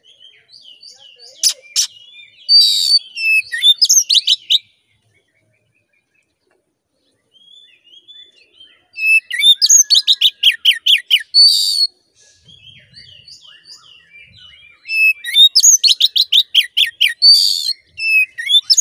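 Male Oriental magpie-robin singing loudly in three long phrases separated by pauses of a few seconds, each mixing whistled notes with fast runs of short, sharp repeated notes.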